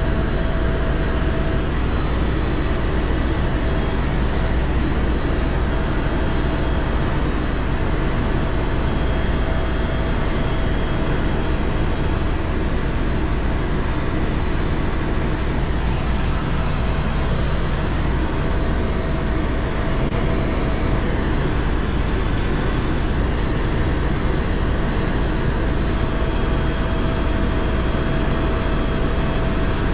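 Helicopter in steady flight: a continuous heavy drone of rotor and engine, strongest in the low end, with a faint whine that comes and goes.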